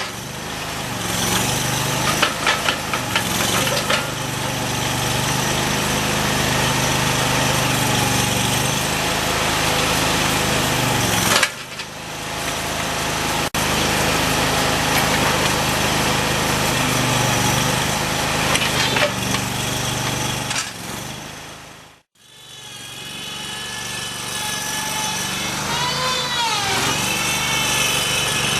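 Terramite T5C compact backhoe loader's engine running steadily with the hydraulics at work. The sound cuts out abruptly about two-thirds of the way through, and when it returns a whine rises and falls in pitch as the machine works.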